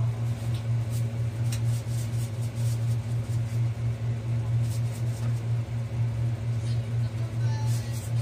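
Steady low machine hum with a few faint clicks over it.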